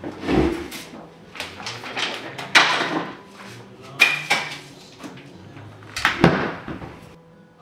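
A run of sharp knocks and clatters, four of them loud and spaced a second or two apart, with smaller ones between, over faint steady low tones.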